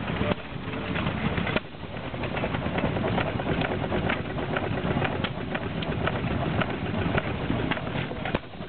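Galloway 2¼ hp hit-and-miss stationary gas engine running, with sharp clicks and pops at uneven spacing over a steady noisy background.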